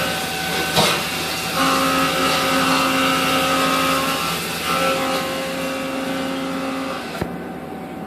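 Mazak 410A vertical machining center running under power: a steady machine whine with several pitched tones that switch on and off, a sharp click about a second in, and another click near the end, where a high hiss cuts off.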